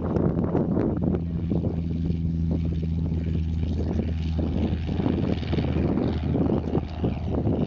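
Cessna 150's four-cylinder Continental O-200 engine and propeller running with a steady low drone, the drone weakening about halfway through.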